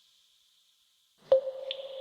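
Near silence, then about a second in a single water drop lands with a sharp plink that leaves a steady ringing, echoing tone. A fainter drip follows a moment later.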